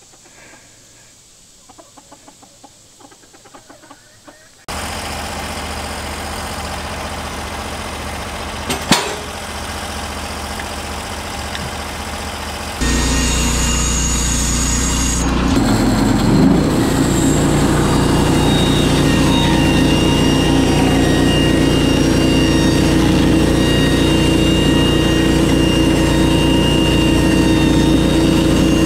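Chickens clucking quietly. About five seconds in, the Norwood HD36V2 sawmill's engine starts running steadily with a sudden start. About thirteen seconds in it jumps louder with a steady hum, and its pitch bends briefly a few seconds later.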